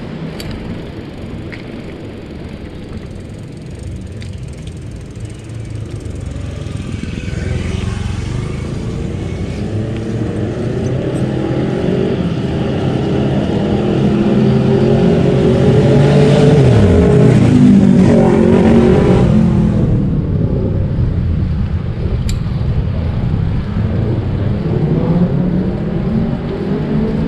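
Wind rumble on the microphone of a moving bicycle. A motor vehicle's engine builds slowly, passes close with its note falling as it goes by, then fades away.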